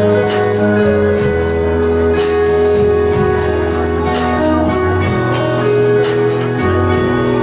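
A live band plays an instrumental introduction on acoustic guitar, electric bass and keyboard, with sustained chords over a changing bass line and a steady beat.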